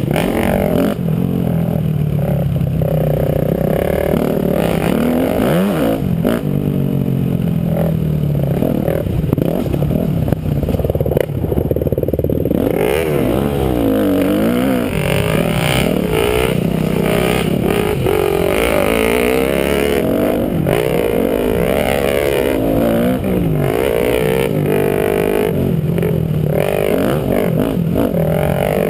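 KTM dirt bike engine revving up and down as it rides a sandy, bumpy motocross track, its pitch rising and falling with each throttle change and gear shift. A few sharp knocks from the bike hitting bumps sound in the first half.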